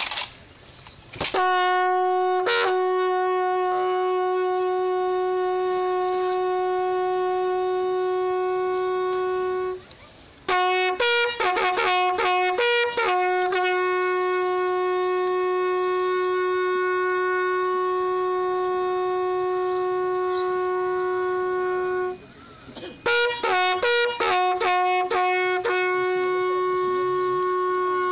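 Bugle sounding the salute call for an armed guard of honour: long steady notes held for several seconds at a time, broken twice by quick runs of short notes that jump in pitch.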